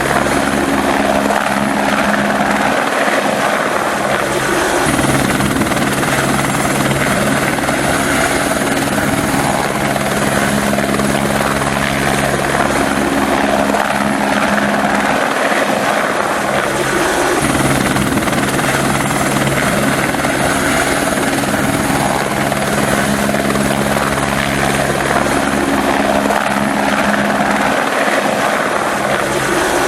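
Helicopter flying, its rotor and engine noise steady and loud throughout, with no approach or fade.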